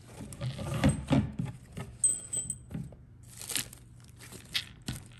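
Small metal carburetor parts being handled: irregular clicks, taps and light scrapes as the tiny retaining screw for the float shaft is picked up and set in place. Two duller knocks come about a second in.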